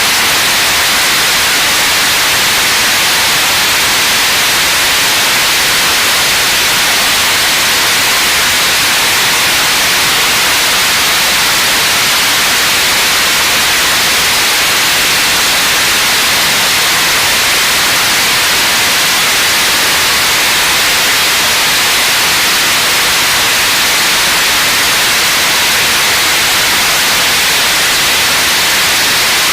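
Launcher E-1 3D-printed, regeneratively cooled liquid rocket engine firing at steady thrust during a long-duration hot-fire test: a loud, even hiss with no change in level or pitch.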